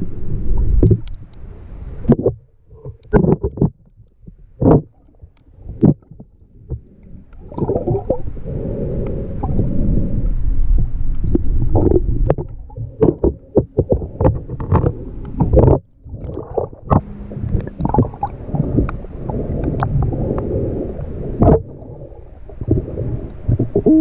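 Muffled underwater sound picked up by a GoPro in its waterproof housing: low rumbling and sloshing of water, broken by many irregular clicks and knocks.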